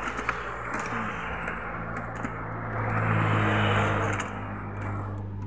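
Motor vehicle passing: a rushing noise over a low engine hum that swells to its loudest about three seconds in and then eases off, with a few light clicks on top.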